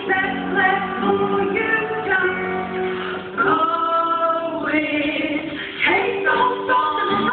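Girls singing a musical-theatre song, holding one long note about halfway through.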